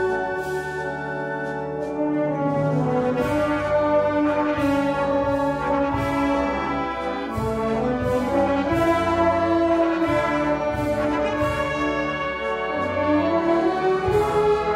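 Symphonic wind band playing a concert pasodoble, with the brass carrying held chords and a moving melody over regular percussion strokes.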